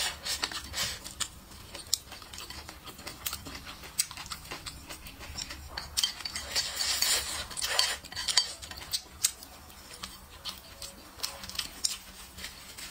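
Wooden chopsticks clicking and scraping against a ceramic plate as the last rice and meat are picked up, with close-up eating sounds. The clicks come irregularly throughout, with a denser noisy stretch about six to eight seconds in.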